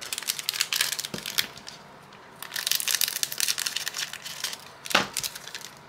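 Foil Pokémon booster pack wrapper crinkling and crackling as it is handled and opened, in two stretches of dense crackle, with a single sharp click near the end.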